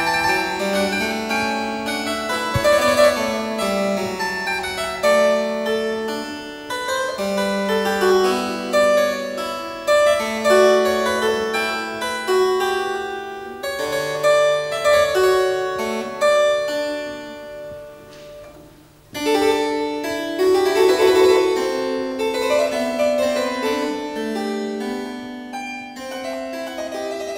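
Solo harpsichord playing a busy run of plucked notes. The playing dies away to a short pause about two-thirds of the way through, then starts again.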